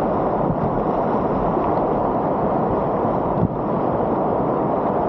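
Whitewater rapids of a river at high water rushing steadily and loudly around a kayak, heard up close on the water.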